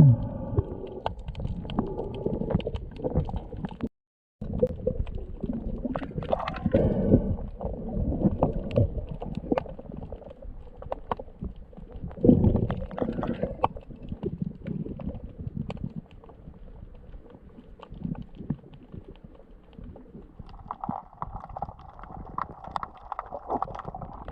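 Water gurgling and sloshing around a camera that is in the sea with a diver hunting crabs: a steady low rumble with many small clicks and knocks, and louder gurgling swells about six and twelve seconds in.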